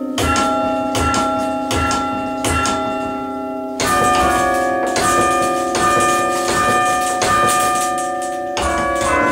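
A chime of tower bells played by hand from a lever chime stand: a slow melody of single bell strokes about every three-quarters of a second, each note ringing on under the next. A soft thump comes with each stroke, and a louder, fuller stroke sounds near four seconds in and again near the end.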